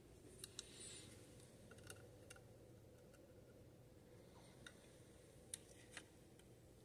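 Near silence: room tone with a few faint, sharp clicks and ticks scattered through it, like small objects being handled.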